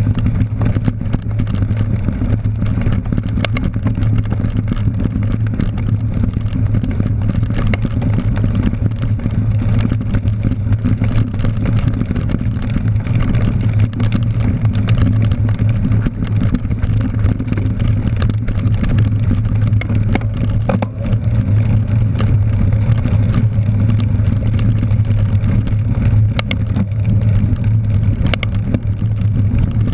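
Steady rumble of wind buffeting and bicycle tyres rolling over grass and dirt, picked up by a bike-mounted action camera, with scattered sharp clicks and rattles from the bike.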